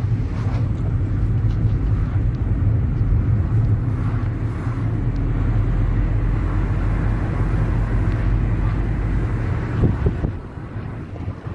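Steady low rumble of a car driving, which drops away sharply near the end.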